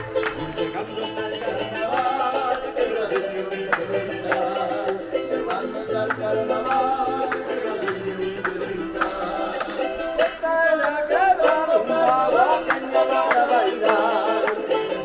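Andean carnavalito folk music, led by a strummed charango with a wavering melody over it, growing a little louder about ten seconds in.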